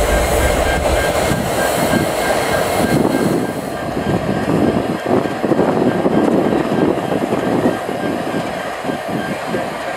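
Norfolk Southern diesel locomotives, a GE Dash 9 leading, passing close by: a continuous engine rumble mixed with the noise of wheels rolling on the rails. The sound changes abruptly near four seconds in, losing much of its hiss.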